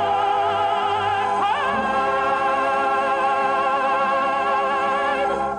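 Music: a note with heavy vibrato is held for several seconds over a steady low accompaniment, then the music cuts off abruptly at the end.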